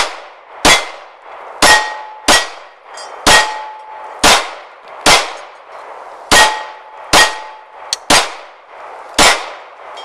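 Magnum Research MR9 Eagle 9mm pistol firing a steady string of about eleven shots, roughly one a second. Several of the shots are followed by the short ringing of hit steel plate targets.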